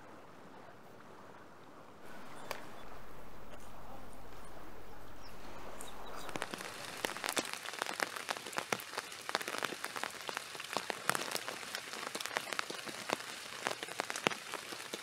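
Rain pattering on umbrellas: a dense run of small drop ticks over a steady hiss, starting about six seconds in. Before that there is a fainter, even hiss.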